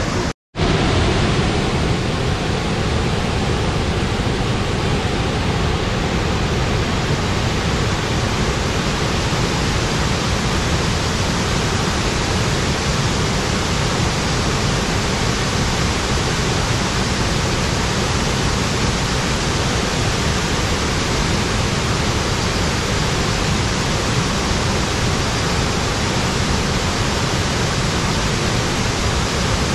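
Waterfall water pouring in a loud, steady rush with no letup. A brief cut to silence comes about half a second in.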